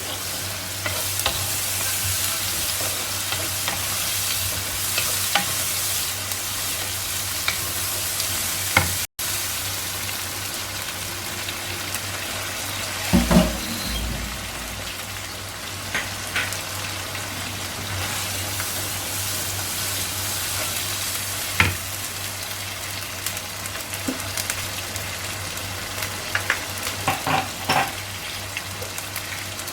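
Onions and ginger-garlic paste sizzling in hot oil, stirred with a utensil, with a few sharp knocks of the utensil against the pan.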